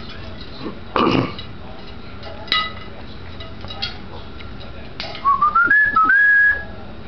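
African grey parrot whistling: a clear whistle that climbs in small steps and ends on a held note about five seconds in. Earlier there is a short loud rough sound about a second in and a sharp click with a brief pitched call at about two and a half seconds.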